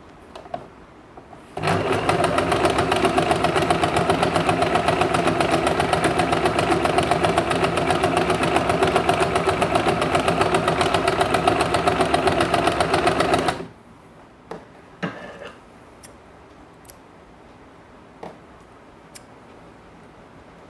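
Usha Janome Dream Stitch electric sewing machine stitching a seam through cotton cloth. It runs steadily at a fast stitch rate for about twelve seconds, starting under two seconds in, then stops abruptly. A few light clicks and taps of handling follow.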